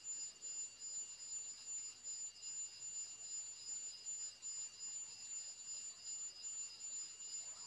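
Faint, steady high-pitched electronic whine made of a few thin constant tones over a low hiss.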